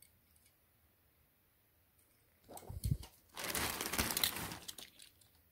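Thin plastic carrier bag crinkling and rustling as hands rummage through it, starting about halfway in after a near-silent start.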